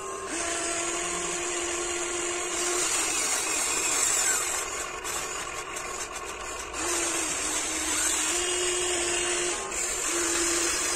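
Small electric motors and gearboxes of a Huina 1594 remote-control excavator whining while it digs. The whine starts and stops several times in runs of a second or two, sliding in pitch as each motor spins up or down.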